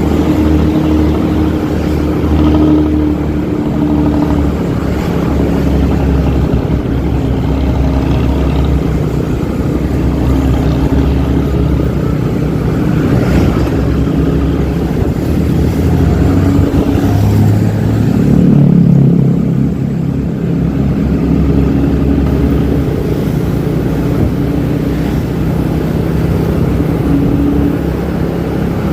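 Intercity bus engine running through a 'ngorok' (snoring) racing exhaust, a loud steady low drone. About two-thirds of the way through the engine revs up briefly, rising in pitch and loudness, then settles.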